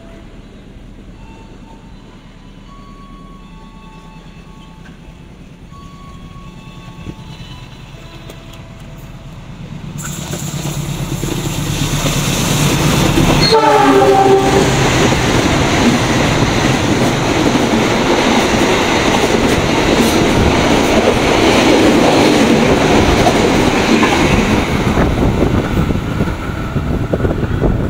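CC206 diesel-electric locomotive hauling stainless-steel passenger coaches approaches and runs through the station at speed. The sound builds from about ten seconds in, the horn sounds briefly about halfway through as the locomotive passes, and then there is a long, loud rush of wheels on rail as the coaches go by.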